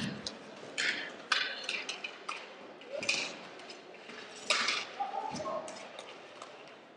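Scattered clacks and knocks of inline hockey sticks striking the ball and the rink floor, with the scrape and rattle of inline skates. A few of the hits are sharper.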